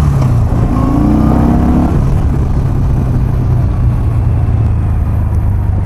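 Yamaha XV950R's air-cooled V-twin engine running as the motorcycle rides slowly, rising in pitch as it picks up speed in the first couple of seconds, then holding a steady drone.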